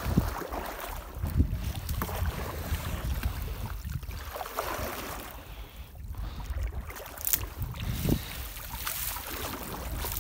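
Water splashing and dripping as a floating fishing net is hauled up into a small rowboat, with wind rumbling on the microphone.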